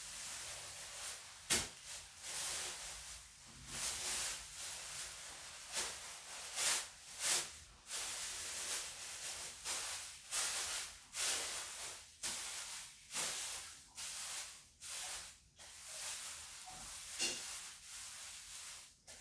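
Clear plastic sheeting crinkling and rustling in irregular bursts as it is folded by hand around a roll of timing belt, with one sharp click about a second and a half in.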